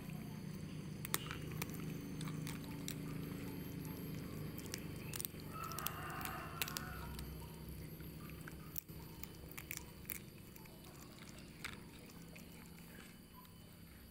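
Cooked fish being pulled apart by hand on a plastic plate: scattered small clicks and soft tearing, with a brief scratchy sound about six seconds in, over a steady low hum.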